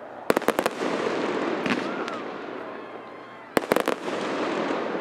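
Fireworks going off: a quick volley of sharp cracks about half a second in and another a little after three and a half seconds, each trailing into a rumbling, fading crackle.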